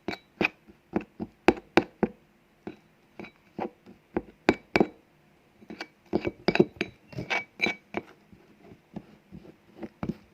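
A spoon clinking and scraping against a bowl while stirring a powder-and-milk paste: rapid, irregular taps with a short ring, broken by a few brief pauses.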